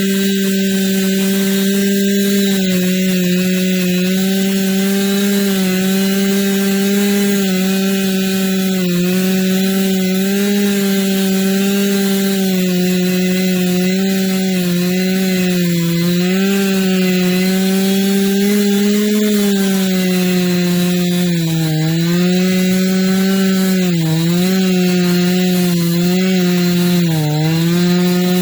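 Chainsaw running at high speed and cutting wood, its pitch held nearly steady with small dips as the chain bites, the dips deeper and more frequent near the end.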